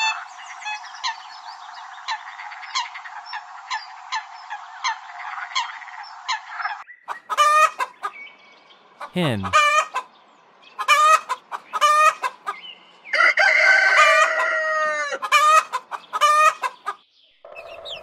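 A rail's short calls repeat about two to three times a second over a steady hiss, and cut off about seven seconds in. Then a domestic hen clucks in short phrases, with one long drawn-out call that dips at its end about thirteen seconds in.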